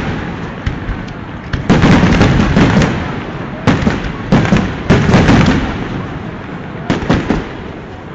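Fireworks display: aerial shells bursting in quick volleys with rapid crackling, several clusters of loud bangs a second or so apart, each trailing off in a rolling rumble.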